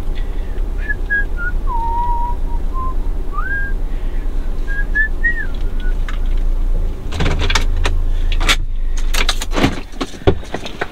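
A person whistling a short, wavering tune over the low rumble of a car. From about seven seconds in come a series of clicks and knocks of things being handled.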